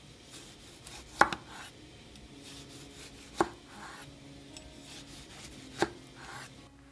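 A kitchen knife chopping on a wooden cutting board: three sharp chops a couple of seconds apart, with softer knife-on-board scraping in between.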